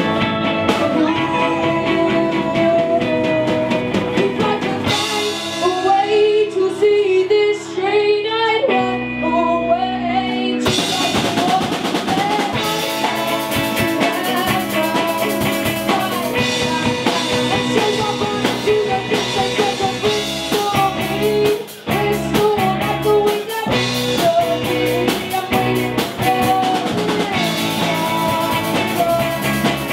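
Live rock band playing a song with a singer, electric guitar and drum kit. About five seconds in, the drums drop away, leaving the voice over held chords, and the full band comes back in at about eleven seconds.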